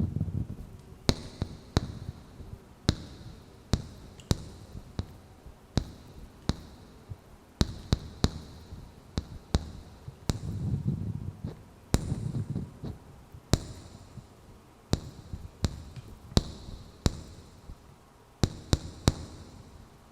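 Wooden candle lids being tapped close to the microphone: irregular sharp wooden taps, some with a short bright ring. There is a low rumbling of handling near the start and again about halfway through.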